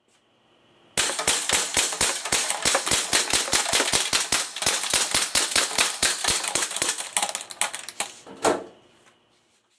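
A toy air gun firing a rapid string of sharp shots, about five a second, for around seven seconds, ending with one louder, longer shot.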